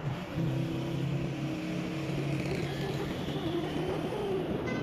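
Motor vehicle engine hum with wind and road rush, heard from a motorcycle riding up a hill road. The hum swells about half a second in as an SUV passes alongside, then fades over the next few seconds.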